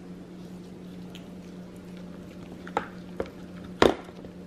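White-faced capuchin monkey eating chicken and picking pieces out of a clear plastic food container: chewing, then three sharp clicks and knocks of hands and food against the plastic from about three seconds in, the last the loudest. A steady low hum runs underneath.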